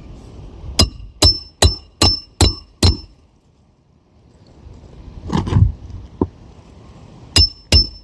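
Hammer driving a roofing nail into a shingle: a quick run of six ringing blows, then after a pause two more blows near the end.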